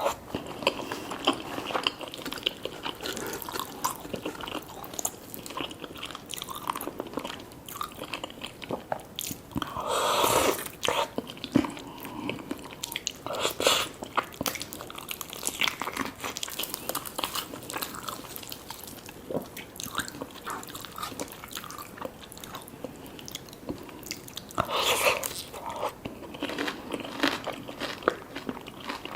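Close-miked eating sounds: crunchy bites into fried chicken and fries, with steady chewing and a few louder crunches along the way.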